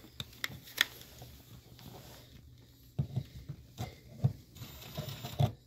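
Scattered light clicks and taps of hands handling a screw and a cordless drill at a recliner's plastic pull-handle bezel, with a few duller knocks in the second half; the drill itself is not running.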